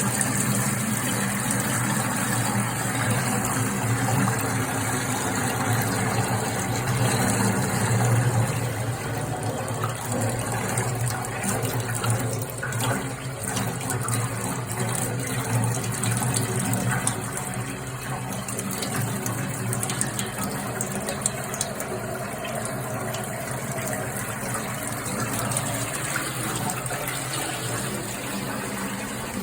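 Water running hard from an opened outlet under high pressure after the supply is turned back on, a steady rushing with a low hum beneath it. The flow eases a little about two-thirds of the way through.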